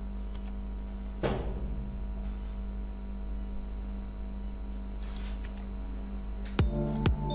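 Steady electrical hum on the recording, with a short burst of noise about a second in and a fainter one around five seconds. Near the end, electronic music starts with sharp, evenly spaced beats.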